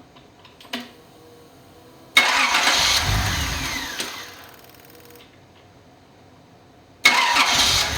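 Datsun 280ZX turbo's L28ET straight-six on a test stand, started twice about five seconds apart. Each time it fires with a sudden loud burst, runs for a second or two and dies away with a falling whine. It is not happy on the replacement ECU, running very rich.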